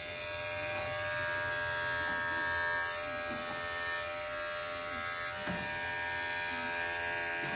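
Electric dog-grooming clippers running steadily, a continuous motor buzz as the blade is worked over a dog's head.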